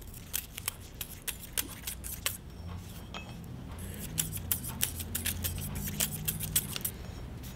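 Scattered light metallic clicks and ticks from a steel piston wrist pin being rolled by hand on a granite surface plate, with a feeler gauge blade held against it. This is a check of the pin for straightness.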